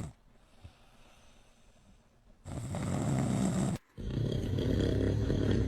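A man snoring: after a quiet stretch, a low, rough snore lasting just over a second begins about two and a half seconds in, then after a short break another snore starts and carries on.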